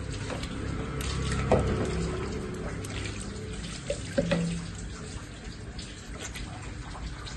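Running water pouring over a skinned broiler chicken as it is rinsed by hand, splashing and dripping onto a stone slab.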